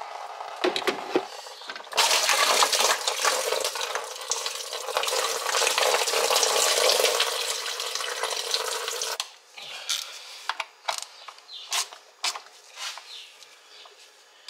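Motor oil being poured into the engine: a steady splashing pour starting about two seconds in and lasting some seven seconds, followed by scattered clicks and knocks.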